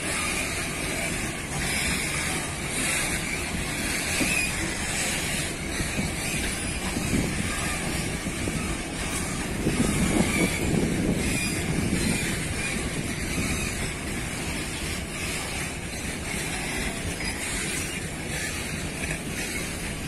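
A loaded freight train's boxcars rolling past on steel wheels: a steady rumble of wheels on rail, swelling for a moment about ten seconds in.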